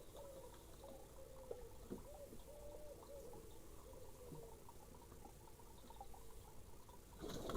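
A dove cooing, a run of soft repeated coos through the first half. Near the end a louder rushing noise comes in.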